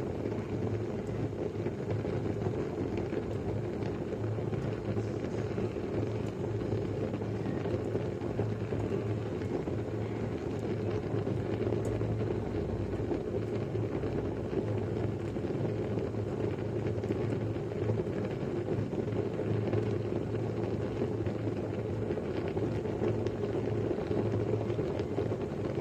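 A pot of rice boiling: steady, even bubbling with a low hum underneath.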